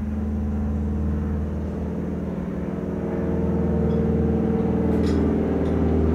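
An old propeller-driven biplane flying over, its engine droning steadily and growing louder as it approaches.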